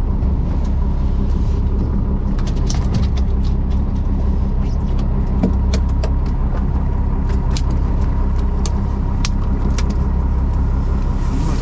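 Boat engine running steadily with a low drone, with scattered sharp clicks and knocks over it.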